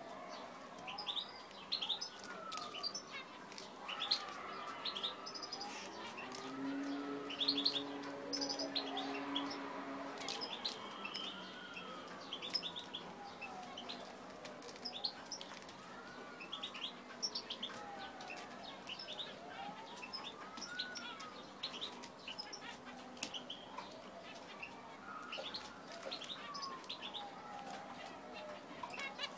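A group of zebra finches calling, a dense scatter of short, high chirps throughout. Beneath them, a slower whistle rises and falls in pitch every few seconds.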